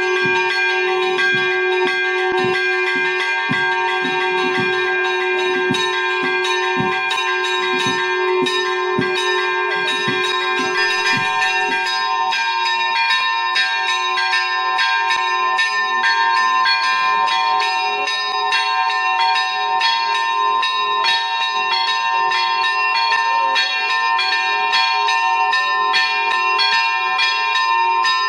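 Chapel church bells rung in a rapid, continuous peal for a religious procession, with many quick strikes and their ringing tones overlapping. The deepest bell drops out about twelve seconds in, and the higher bells keep ringing.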